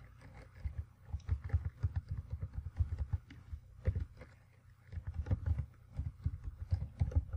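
Computer keyboard typing: quick, uneven keystrokes in two runs with a brief pause in the middle.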